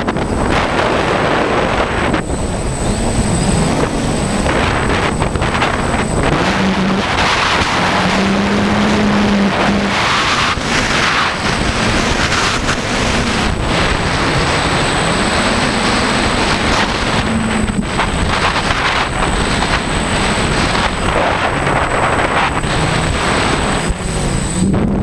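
Strong gusty wind buffeting the onboard microphone of a DJI F550 Flamewheel hexacopter, over the hum of its motors and propellers, which wavers up and down in pitch.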